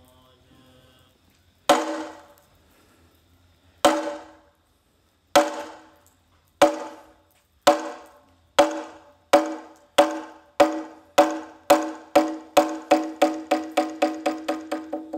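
A wooden signal board (gandi) struck with a mallet, each stroke giving a hollow wooden ring. The strokes come slowly at first, about two seconds apart, then speed up steadily into a fast roll of several a second near the end. This accelerating beating is the traditional monastic call to assembly.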